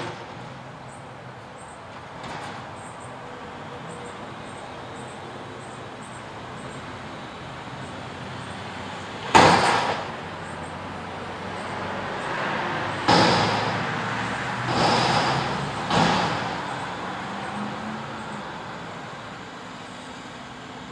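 Mack front-loader garbage truck engine and hydraulics running as the forks lift a steel dumpster over the cab and tip it into the hopper. There is a loud metallic bang about nine seconds in as the container tops out and empties, then three more bangs a few seconds later as it is knocked against the stops to shake out the load.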